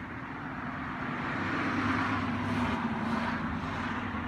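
A vehicle passing by: an engine hum with a low tone that swells to its loudest about two seconds in, then fades a little as its pitch drops slightly.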